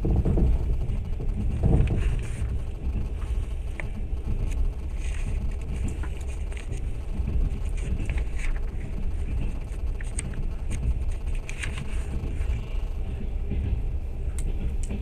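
Moving passenger train heard from inside the carriage: a steady low rumble of wheels on the rails, with scattered clicks, rattles and brief high squeaks.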